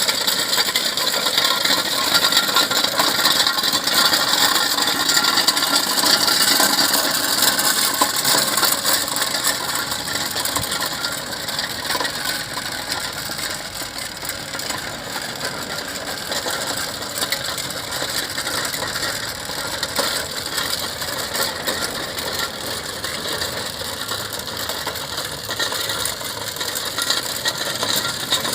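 Zettelmeyer three-wheel road roller driving forward with a steady metallic clatter and rattle of gears and running gear over a hiss. The sound eases slightly after about ten seconds.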